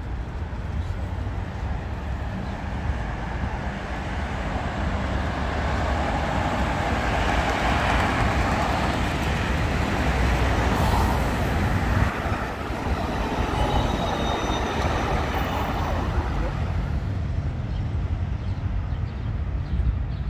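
City street traffic with a large vehicle passing close by: a rumbling noise swells over several seconds, peaks in the middle and fades away, with a faint high whine as it goes.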